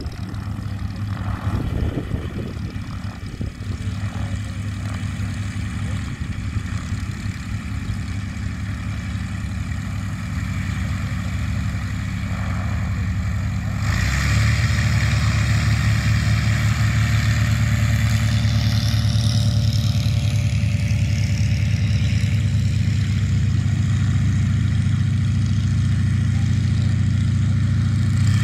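Yak-52's nine-cylinder radial engine running on the ground, a steady low drone. It steps up in loudness about halfway through and holds there.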